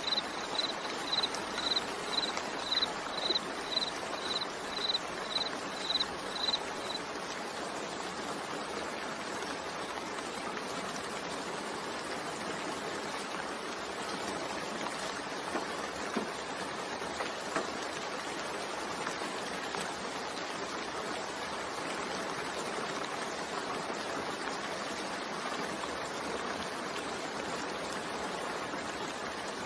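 Steady rain with an even, rushing hiss. For the first six seconds or so a high chirp repeats about twice a second, then stops.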